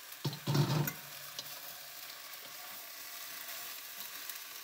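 Vegetables sizzling in a hot pan as soya chunks go in, with two short knocks in the first second, then steady sizzling while they are stirred.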